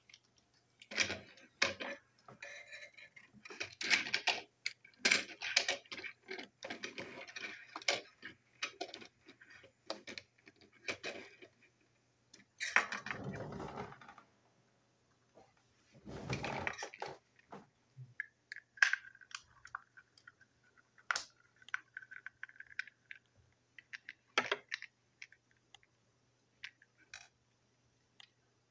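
Small plastic toy train trucks being handled and taken apart with a small screwdriver: irregular clicks and clatter of plastic parts and screws, with two longer rustling scrapes about halfway through and a thin squeak a little later.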